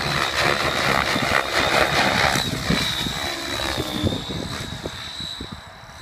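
Align T-Rex 700E electric RC helicopter in flight: rotor blades rushing with a high, steady whine, fading over the last couple of seconds as it climbs away.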